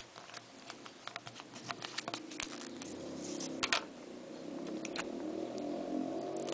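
A sheet of paper being rolled tightly around a pen or pencil: irregular small crinkles, rustles and ticks. A low steady hum comes in about halfway through.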